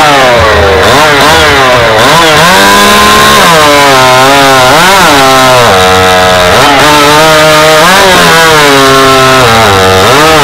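Gas chainsaw running flat out while cutting through a log in a timed stock-class bucking race. Its pitch sags and recovers several times as the chain comes under load.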